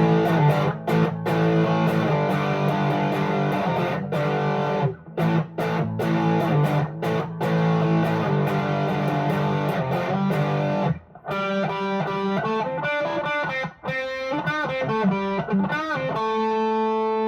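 Electric guitar played through an overdrive pedal into a small valve amp, giving a moderately high-gain tone. It plays a riff of chopped, rhythmic chords, then a single-note lead line, and ends on a note left ringing.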